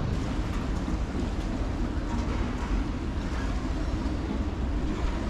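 Steady low rumble of boat engines out on open water, with wind buffeting the microphone.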